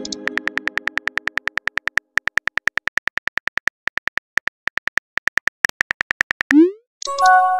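Smartphone on-screen keyboard clicking rapidly, about ten taps a second, as a text message is typed. Near the end comes a quick rising swoosh, the messaging app's message-sent sound, followed by a short chime of several notes.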